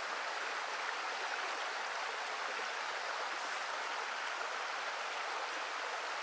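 Shallow stream flowing: a steady, even rush of running water.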